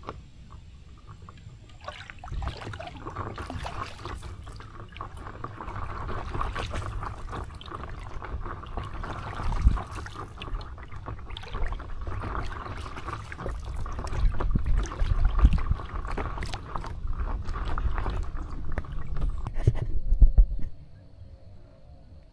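A paddle dipping and pulling through the water, stroke after stroke, with splashing and dripping over a low rumble of water close to the board. The water sound stops abruptly near the end.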